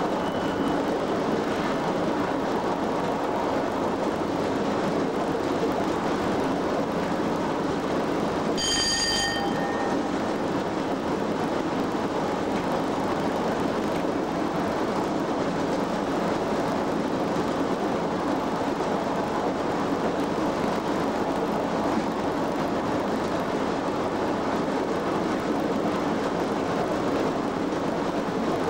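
Cab of a Class 87 AC electric locomotive running at speed: a steady running noise of wheels on rail and traction equipment. About nine seconds in, a brief ringing tone sounds.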